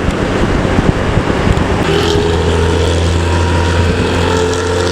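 Intercity bus's diesel engine with a loud modified exhaust, giving a steady, deep low drone: the 'snoring' exhaust (knalpot ngorok).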